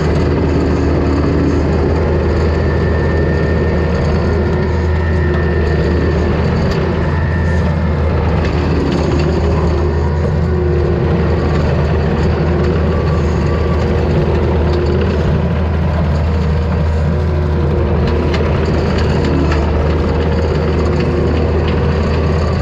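Takeuchi TL250 compact track loader's diesel engine running steadily under load while its hydraulic brush cutter mows through brush and wet grass: a constant low drone with a faint whine for a few seconds near the start.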